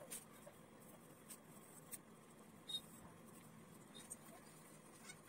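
Faint pencil sketching on paper over near silence: light scratching with a few soft ticks.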